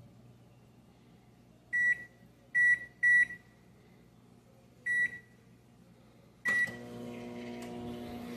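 Microwave oven keypad beeping five times as the cook time is entered and the start button pressed. With the last beep the oven starts running with a steady hum.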